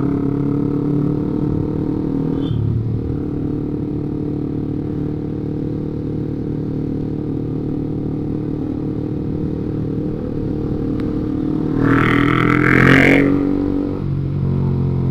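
Motorcycle engine running steadily at road speed. About twelve seconds in, a louder, higher-pitched sound joins it for about two seconds, its pitch falling as it ends.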